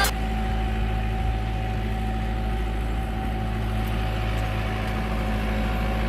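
Farm tractor engine running steadily as it pulls a trailer loaded with wrapped round silage bales.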